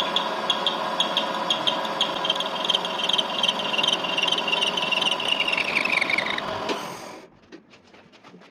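A lathe running, with a squeal that pulses two to three times a second over a steady tone. Near the end the squeal falls in pitch, and the sound drops away about seven seconds in, leaving a few faint ticks.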